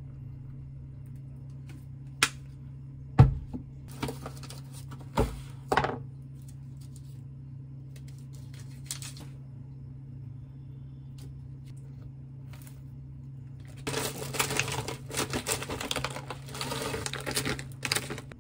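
Frozen blueberries shaken out of a bag, rattling and tapping onto waffles and a wooden board for about four seconds near the end. Earlier come a few sharp knocks, the loudest a thump about three seconds in, with a low steady hum underneath.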